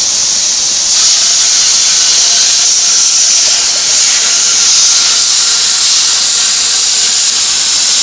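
An air plasma cutter (HANDTEK Cut-40) set at about 15 amps, cutting through the thin steel casing of a car muffler. It gives a loud, steady hiss from the plasma arc and its compressed air.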